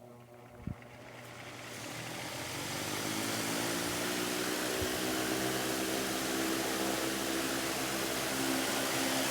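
An engine or motor running steadily, growing louder over the first few seconds and then holding.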